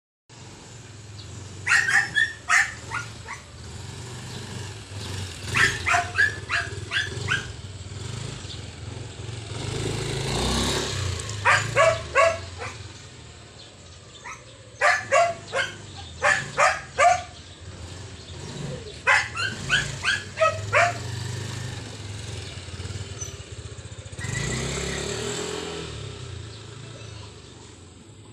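A dog barking in five bouts of four to six quick barks, over the steady low running of a motor scooter's engine, which swells twice as the scooter passes close.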